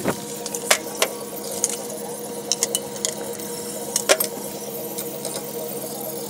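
Scattered sharp clicks and metallic knocks from hand work installing fire suppression piping under a kitchen hood, over a steady hum. The loudest knocks come just after the start, about a second in, and again around four seconds in.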